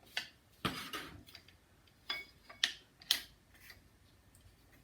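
A small metal wrench being picked out and handled: a few light metallic clicks and clinks, the sharpest two about two and a half and three seconds in.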